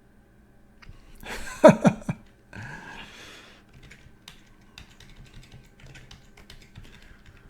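Light clicks of a computer keyboard and mouse. About a second and a half in there is a louder brief sound that falls in pitch, then a short rush of noise.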